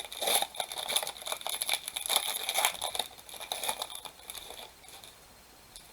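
A trading card pack's wrapper being torn open and crinkled by hand, a dense rustling and tearing for about four and a half seconds.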